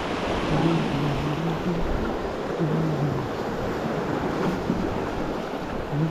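Ocean surf washing among jetty boulders, with wind buffeting the microphone. A faint low hum comes and goes a few times.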